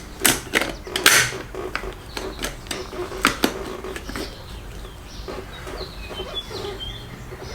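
Clicks, taps and clinks of a metal headlight ring and LED headlight being handled and fitted into the headlight bucket, densest in the first few seconds and then lighter handling noise. A few faint high chirps come about six to seven seconds in.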